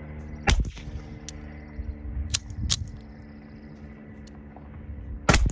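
Two suppressed .22 LR pistol shots from a Ruger Mark II fitted with a solvent-trap suppressor, about five seconds apart. The slide is held shut by thumb, so the action does not cycle and there is no port pop. Sharper, lighter clicks between the shots come from the slide being racked by hand.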